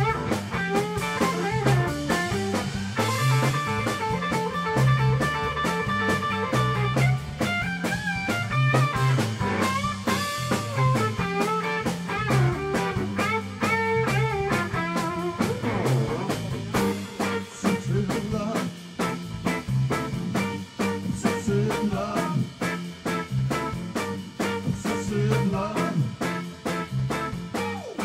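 Live blues trio of electric guitar, electric bass and drum kit playing. The semi-hollow electric guitar leads with bent, held notes over a steady bass and drum groove.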